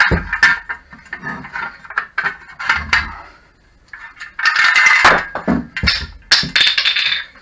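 Metal-on-metal clicking, knocking and scraping as the tension arm is worked off the Tacx Flux trainer's steel frame. The clatter is busiest in the second half.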